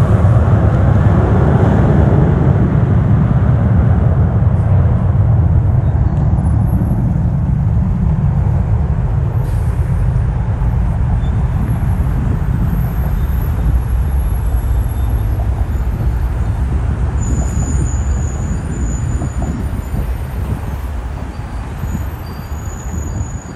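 Airbus A330-300 airliner's jet engines at takeoff thrust during its takeoff roll and climb-out: a loud, deep, steady rumble that slowly fades as the aircraft draws away.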